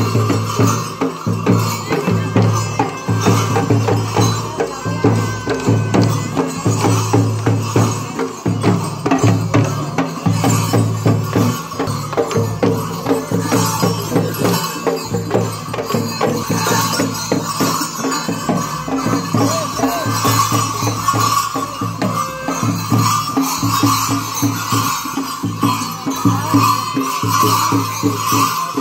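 Traditional folk music with a steady drum beat, jingling bell and rattle percussion, and a sustained melodic line above.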